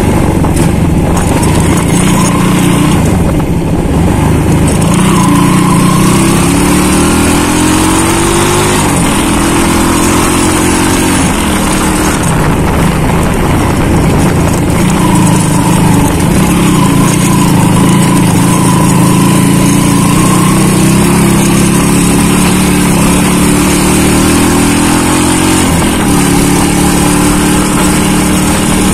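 Small motorcycle engine running while riding, its pitch climbing as it accelerates and dropping suddenly at a gear change about nine seconds in and again a few seconds before the end, with steady wind noise on the microphone.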